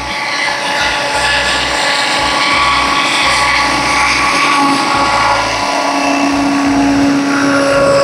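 Size-600 electric RC AS350 scale helicopter hovering at a low headspeed: a steady motor and rotor whine made of several fixed tones. Wind buffets the microphone in gusts, giving a low rumble that comes and goes.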